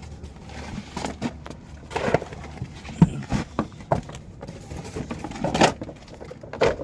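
Irregular footsteps with scattered knocks and clicks.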